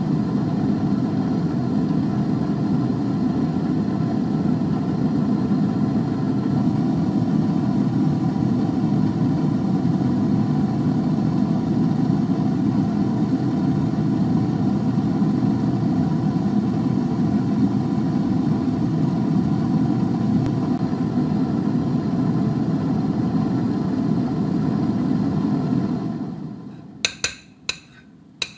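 Air fryer's fan running steadily, then switching off about two and a half seconds before the end, followed by a few sharp clinks.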